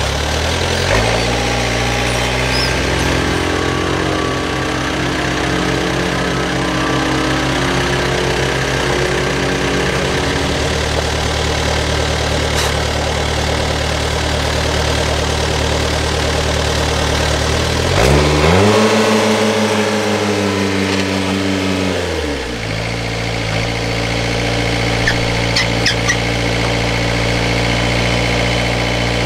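Tractor's diesel engine running steadily. It picks up speed about a second in, then revs higher for about four seconds near two-thirds of the way through before dropping back.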